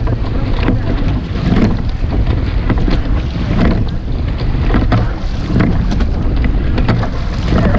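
Wind buffeting the microphone and water rushing past a rowing shell under way, with a faint knock about every two seconds in time with the rowing strokes.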